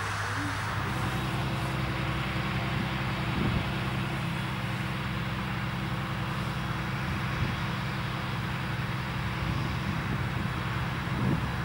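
John Deere 8000-series tractor's six-cylinder diesel engine running at a steady, even drone under load while pulling a wide cultivator through the soil.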